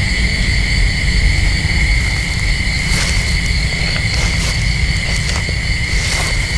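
Steady, high-pitched insect chirring over a continuous low rumble. A few short clicks or taps come in the second half.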